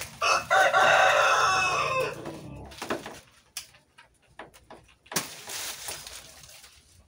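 A rooster crows once, one long loud crow of about two and a half seconds. Then come a few sharp knocks from a machete cutting a banana bunch's stalk, and a short rustle of leaves about five seconds in as the bunch comes free.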